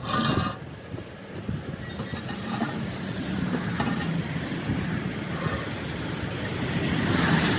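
A sharp knock right at the start, then a steady low mechanical rumble, like a running vehicle engine, that grows louder toward the end.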